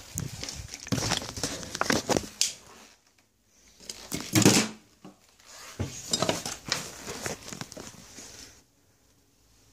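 Irregular rustling, scraping and knocking from a handheld phone being moved about, with one louder thump about four and a half seconds in.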